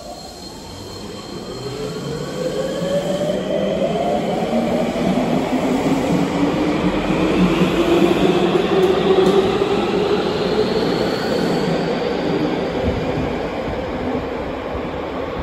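Electric subway train pulling out of an underground platform. Its traction motors give off several tones that climb steadily in pitch as it accelerates, over wheel and running noise that swells to a peak about halfway through and then eases as the train leaves.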